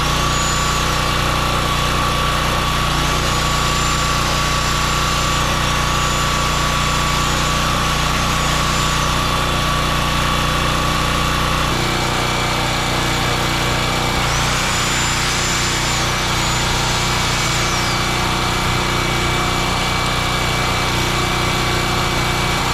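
Generac GP3300 portable generator's small engine running steadily, with a slight change in its whine about halfway through.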